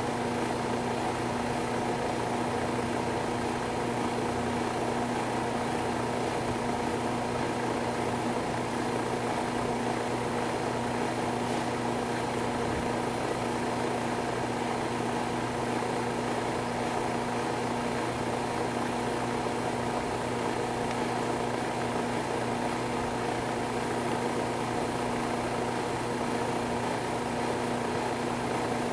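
Steady mechanical hum with a low drone and several higher steady tones, unchanging throughout.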